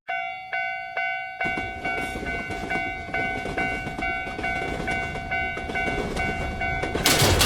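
Japanese level-crossing (fumikiri) alarm ringing its repeated 'kan-kan' ding about twice a second. From about a second and a half in, a train rumbles and clatters past under the bell, with a loud rush of noise near the end.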